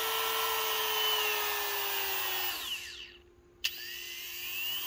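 Worx MakerX cordless rotary tool running with a steady whine, its speed set from the dial on the control unit. About two and a half seconds in it winds down to a stop; a click follows, and it spins back up with a rising whine near the end.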